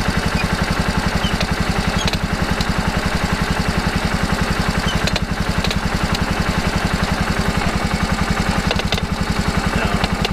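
Kawasaki Prairie KVF360 ATV's single-cylinder engine idling steadily with an even, rapid pulse.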